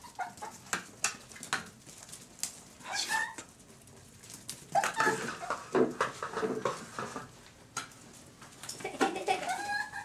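Japanese raccoon dog pups calling in three bouts of short, pitched cries, about three, five and nine seconds in, with scattered light clicks and taps between them.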